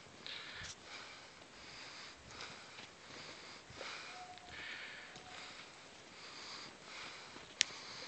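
Heavy breathing of a hiker walking the trail, close to the microphone, with breaths coming every second or so: out of breath from the climb. A single sharp click near the end.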